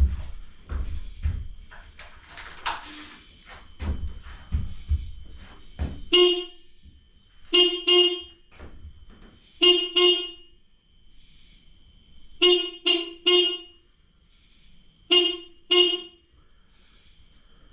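The 2006 Suzuki Boulevard C50's original electric horn sounds in about ten short beeps, in quick pairs and one group of three, over the second half. Before the beeps there are a few clicks and knocks.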